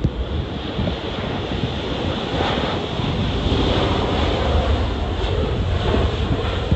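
Gusty wind buffeting the microphone, a ragged low rumble with a steady rush over it that swells through the middle and eases near the end.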